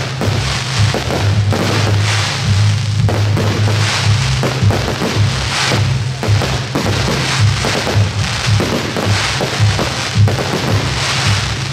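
Fireworks going off with dense crackling, over music with a steady low beat.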